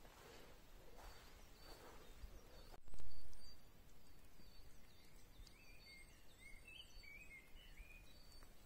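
Footsteps rustling on a trail, about one step a second, then a brief low bump about three seconds in, then small birds singing: high whistled notes that slide up and down, with chirps.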